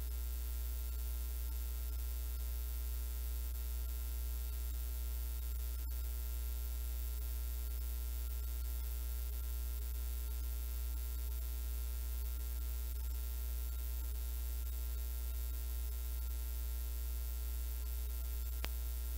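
Steady low electrical hum that stays unchanged throughout, with no cooking sounds standing out above it.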